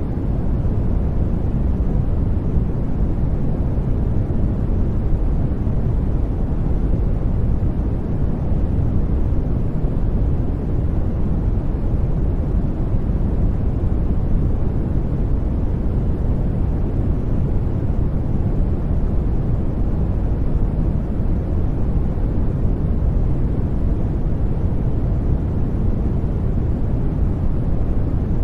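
Continuous study noise: a steady, even rush weighted heavily toward the low end, a deep rumble with little hiss, unchanging throughout.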